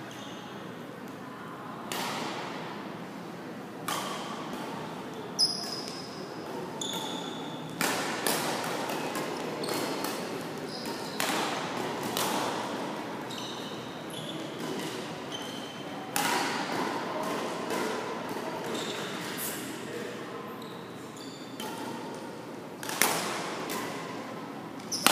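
Badminton rally echoing in a large gym: sharp racket strikes on the shuttlecock every second or two, the loudest about five seconds in and near the end, with short high squeaks of shoes on the court floor.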